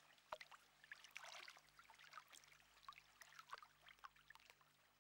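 Near silence, with faint irregular crackling and ticking.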